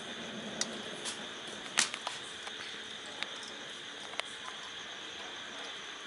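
Eggs tapping against an aluminium pot as they are set into its water, over a crackling wood fire: scattered sharp clicks and taps over a steady hiss, the loudest about two seconds in.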